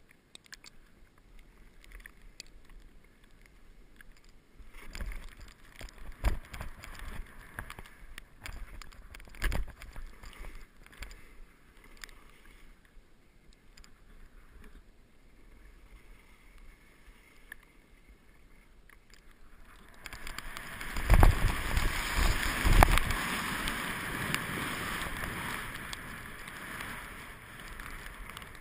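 Skis swishing through deep powder snow, with scattered soft thumps as they turn and land. About twenty seconds in, a much louder steady rush of air and skis sets in as the skier picks up speed on packed snow, with a few heavy low thumps at the start of it.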